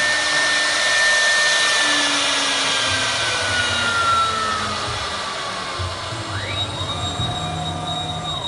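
CNC wood router running, a steady rushing motor noise with a high whine that slowly falls in pitch over a few seconds. Near the end, shorter whines glide up and down in pitch as the machine's motors speed up and slow down.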